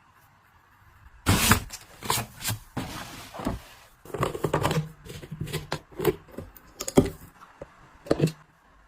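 Household items being handled and put away: an irregular run of rustles, scrapes, clicks and knocks starting about a second in, with the sharpest knock near the middle.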